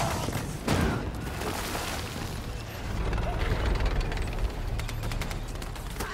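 War-film battle sound effects: a heavy impact about a second in, then a low rumble of explosions, and a rapid burst of gunfire near the end.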